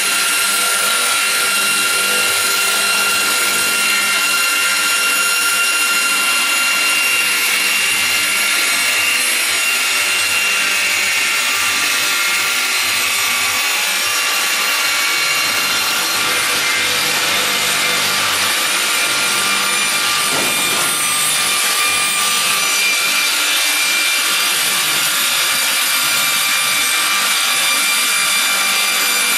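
GP-500VRP slab-processing sawmill machine running and sawing wood: a steady, unbroken machine noise with constant tones over it.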